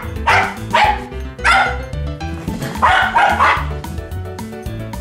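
Shetland sheepdog barking in quick runs of sharp barks as it chases a squirrel, over background music with a steady bass line.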